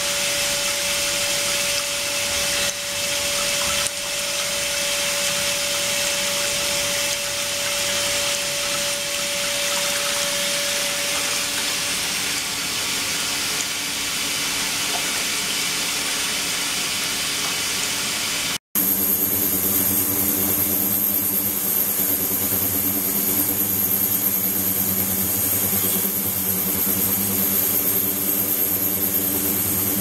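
Ultrasonic cleaning tank running with circulating water: a steady hiss of flowing water and cavitation, with a faint steady tone for the first dozen seconds. After a brief cut about 19 s in, a steady high-pitched whine and a low machine hum come in.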